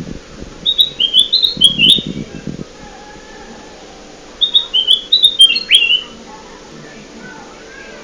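Kutilang emas bulbul song played as a bird-lure call: two bursts of quick, bright chirping notes, each about two seconds long, the first starting about a second in and the second about four and a half seconds in.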